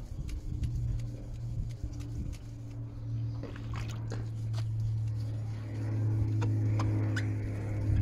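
A steady low motor hum that grows a little louder past the middle, with scattered light clicks and rubbing from a headlight lens being hand-sanded.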